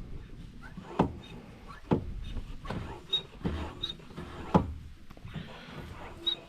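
A handful of irregular knocks and thumps, about five, some seconds apart, over a low rumbling background.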